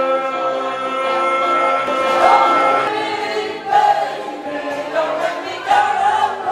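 Several voices singing together into microphones: a long held chord for about the first three seconds, then an abrupt change to shorter, pitch-bending sung phrases.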